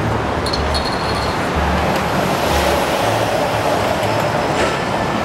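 Steady, loud rumbling background noise with irregular low thumps and no speech.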